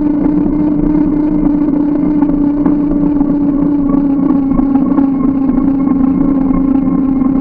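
Steady drone of the bike riding at an even speed, picked up by a camera mounted on it: one unchanging hum over a constant rough rumble of road and wind.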